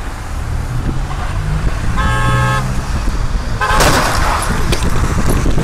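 Traffic rumble at a busy intersection; a car horn blares for about half a second two seconds in. A second short honk comes about 3.6 s in, cut off at once by a loud crunch of a collision, the loudest sound.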